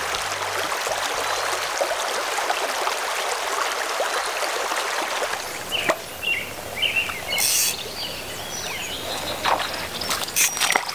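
Running creek water, a steady rushing for about the first five seconds. Then a quieter background with birds chirping, and a few brief sharp sounds near the end.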